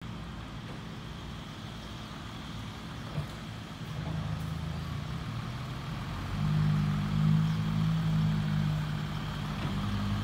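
Heavy diesel dump truck engine running, its steady low note stepping up and growing louder about four seconds in and again past the middle, as if working under load.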